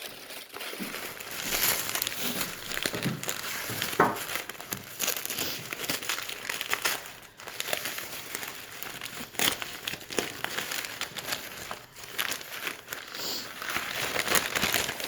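Wrapping paper crinkling and rustling in irregular bursts as a wrapped item is handled and unwrapped by hand.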